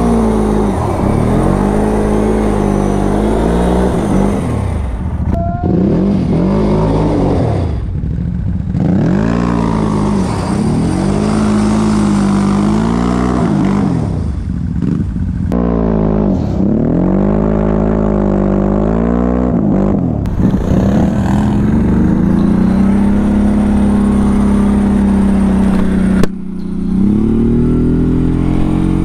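CF Moto CForce 1000 ATV's V-twin engine revving up and easing off as it is ridden, its pitch rising and falling in about six long sweeps, then holding steady for a few seconds near the end. The ATV has a broken driveshaft and is running on rear-wheel drive, making a loud noise the rider cannot place.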